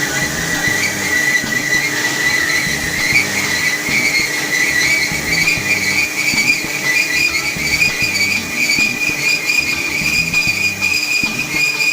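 BS-650G metal-cutting band saw running: a steady high-pitched whine over a rough mechanical noise, the whine slowly climbing in pitch.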